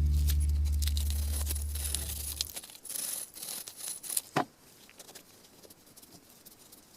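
A low guitar chord rings out and fades away over the first two and a half seconds. Then come scattered small clicks and scratchy rustling of hands handling parts, with one sharper click about four and a half seconds in.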